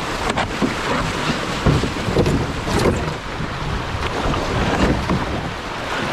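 Rushing whitewater of a small rocky rapid around a canoe running down it, with water splashing along the hull and wind buffeting the microphone.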